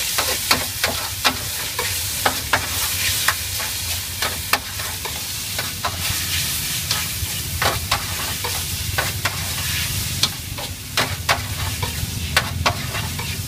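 Noodles and bean sprouts sizzling in hot oil in a wide shallow wok, with a steady hiss, while a metal spatula scrapes and strikes the pan in sharp, irregular clacks as they are stir-fried.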